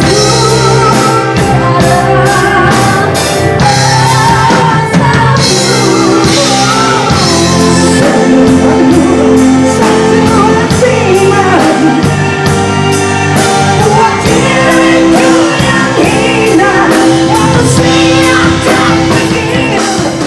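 Rock music with a singing voice over a band with drums, playing loudly throughout.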